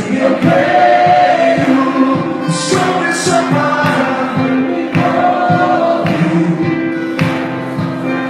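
Live worship song: a church band playing with voices singing, and regular percussion strikes.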